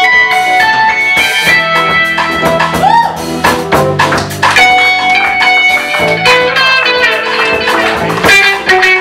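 Live band playing an instrumental jam: an electric guitar plays quick single-note lines over drum kit, keyboard and bass, with a note bent upward about three seconds in.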